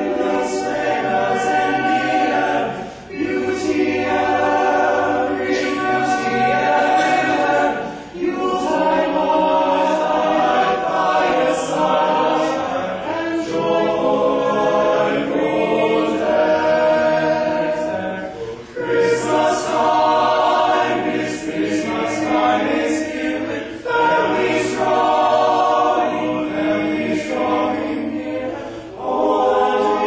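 Male a cappella group singing in close harmony without accompaniment, the phrases breaking off briefly every several seconds.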